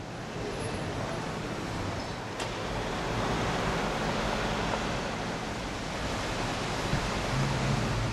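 Outdoor street ambience: a steady rush of traffic noise that swells about two and a half seconds in, with a single sharp click just before the swell.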